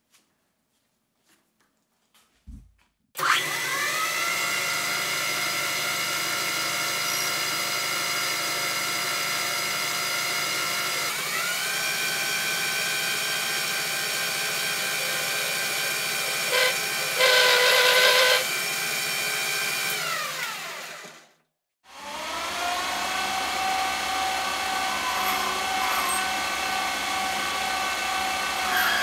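Metal lathe turning a copper bar: a few light clicks of the chuck key, then the motor starts with a rising whine and runs steadily through the cut, with a brief louder stretch partway through. It winds down and stops, then runs again as a twist drill in the tailstock is brought to the copper.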